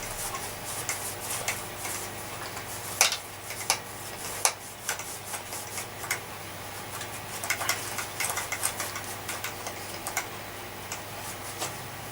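Irregular scrapes, scratches and sharp clicks from hand-scrubbing caked dirt off an old vacuum cleaner's parts, over a low steady hum.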